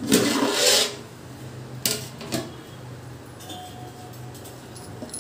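Aluminium lid scraped across the rim of a metal cooking pot and lifted off, a rasping metal-on-metal rub in the first second, followed by two light clanks.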